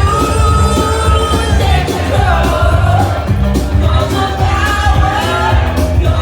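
Live rock-and-roll band playing loudly with a lead singer, a steady bass and drum beat under the sung melody, and crowd voices shouting along.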